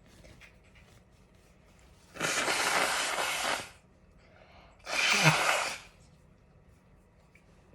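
A person sneezing twice, about two and a half seconds apart. The first sneeze is long and breathy, and the second ends with a short voiced note.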